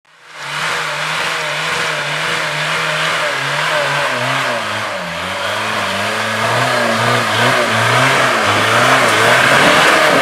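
A vehicle engine running and revving, its pitch wavering up and down unevenly. It fades in over the first half second and grows a little louder toward the end.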